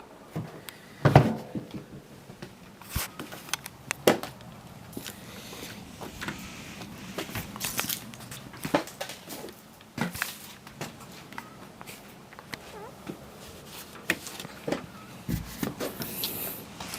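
Scattered knocks, clicks and rustling, with a louder thump about a second in: things being moved and handled in a small shed.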